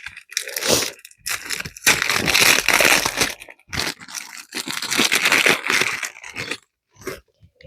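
Plastic packaging crinkling and tearing in irregular bursts as a small pack is handled and opened.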